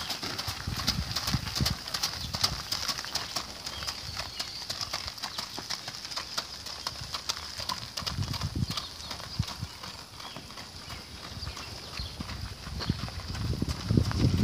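Haflinger mare's hooves clip-clopping on gravel at a walk, with the wooden-spoked wheels of a two-wheeled cart crunching over the gravel.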